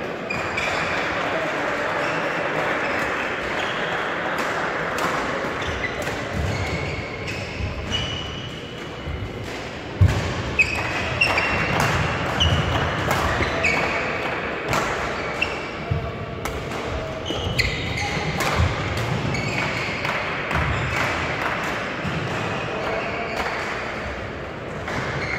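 Badminton rally in a reverberant sports hall: sharp cracks of rackets hitting the shuttlecock, short high squeaks of court shoes and thuds of footwork, over a background of murmuring voices.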